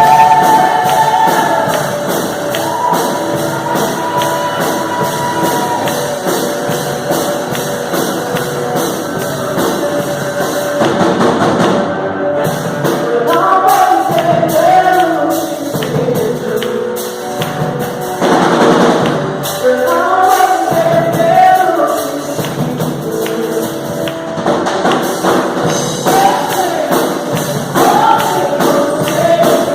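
Live gospel worship music: a group of singers over a band, with drums and percussion keeping a steady beat.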